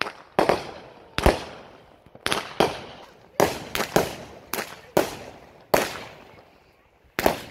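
Aerial fireworks going off in a rapid string: about a dozen sharp bangs, irregularly one or two a second, each trailing off in a short echo as shells launch and burst overhead.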